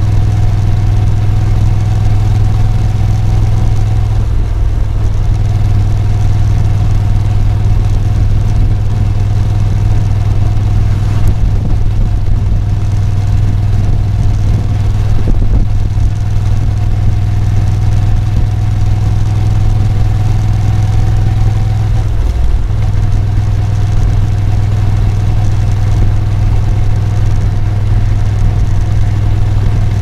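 Moto Guzzi V7 Special's 850 cc air-cooled V-twin engine running steadily at cruising speed. Its note dips briefly twice, about four seconds in and again about two-thirds of the way through.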